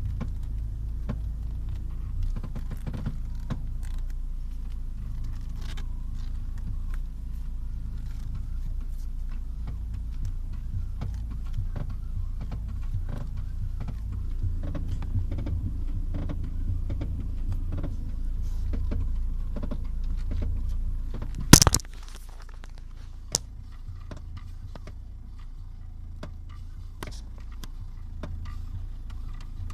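Repeated creaking from the front steering and suspension of a 2001 Renault Scénic 1.9 dCi as the steering wheel is turned with the car at a standstill, over a steady low rumble. The creak persists after the ball joint, tie rod end, strut, strut top bearing and inner tie rod boot were replaced or greased, so its cause is unknown. About twenty-one seconds in there is one loud sharp knock, and the low rumble then drops away.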